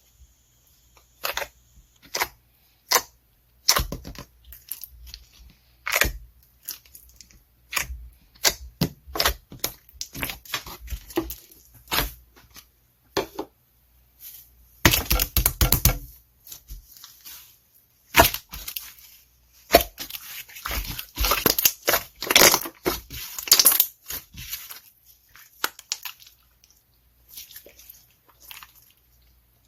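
Irregular crunching and tearing: many short, sharp cracks in uneven clusters, densest about fifteen seconds in and again from about twenty to twenty-four seconds.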